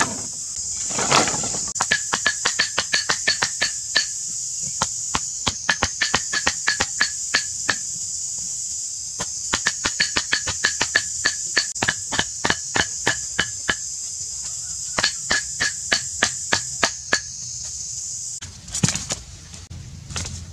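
Sharpened wooden stakes being pounded into the ground with a piece of wood: quick wood-on-wood knocks, about five a second, in runs of a few seconds with short pauses between. A steady high-pitched insect buzz runs underneath.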